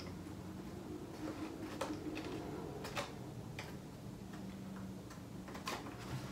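Faint, scattered light ticks and taps of cardstock being handled and pressed together, with one louder thump right at the end.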